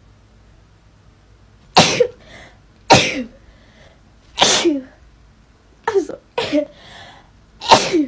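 A young woman sneezing about six times in quick succession, starting about two seconds in. Each is a sudden sharp sneeze ending in a short falling 'choo'. The sneezes are set off by the nasal swab of a lateral flow test.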